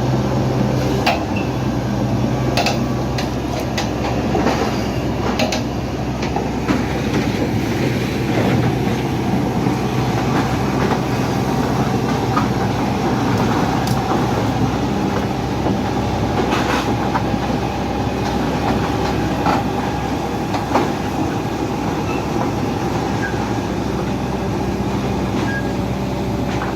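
A heavy vehicle running steadily, with a low engine-like drone and dense mechanical noise, punctuated by scattered knocks and rattles.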